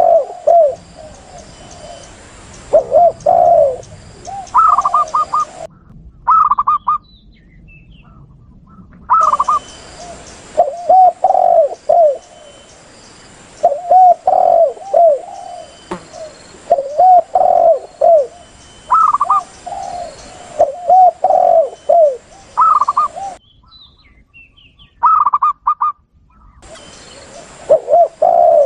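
Spotted doves and zebra doves cooing over and over: lower, rounded spotted-dove coos, with bursts of quicker, higher zebra-dove notes between them. A steady background hiss cuts out abruptly twice where the recording is spliced.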